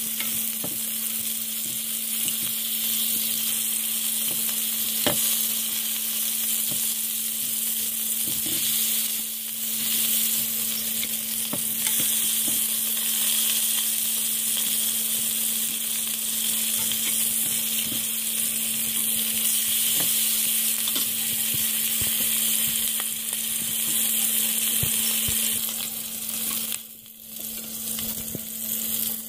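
Lamb chops sizzling in butter and fat in a frying pan, a steady hiss with scattered clicks of metal tongs touching the pan. The sizzle drops briefly near the end.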